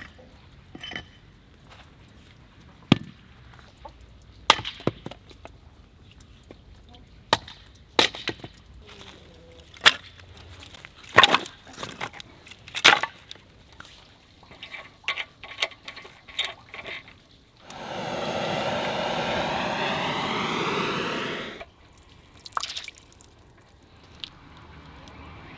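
Hatchet splitting kindling on a wooden stump: a string of sharp wooden cracks and knocks, with split sticks clattering. Near the end, water runs steadily from an outdoor tap for about four seconds and cuts off abruptly.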